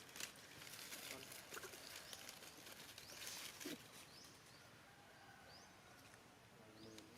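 Faint rustling and scuffling in a few short spells, with brief high rising chirps every second or so.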